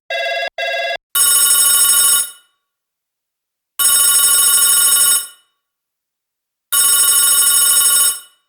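Two short beeps, then a telephone bell ringing three times, each ring lasting about a second with a fast rattle.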